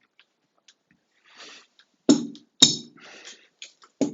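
Three sharp knocks of hard objects, about two, two and a half and four seconds in, each with a short ring, as the removed shower faucet cartridge and its tool are handled.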